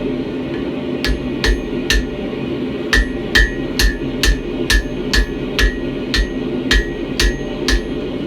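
Blacksmith's hammer striking a railroad spike on an anvil, about two blows a second, each with a short metallic ring. The blows pause briefly near the start and again about two seconds in, over a steady low background noise.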